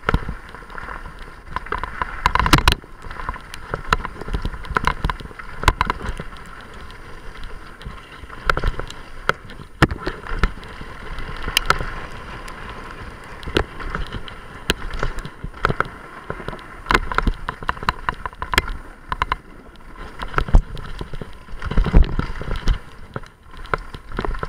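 Mountain bike riding fast down a gravel trail, heard from a handlebar-mounted camera: tyre noise on loose gravel with constant rattling clicks and knocks from the bike over bumps, and heavier thumps about two and a half seconds in and near the end.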